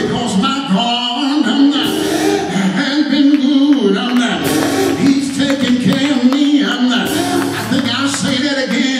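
Church music with a man's voice singing over it.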